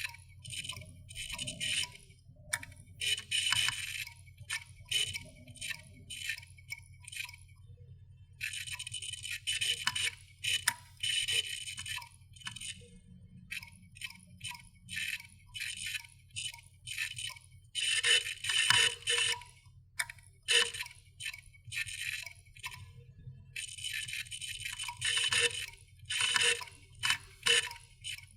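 Dying computer hard drive clicking: rapid, irregular clusters of scratchy clicks and ticks from the read/write heads over a steady low hum from the spinning motor.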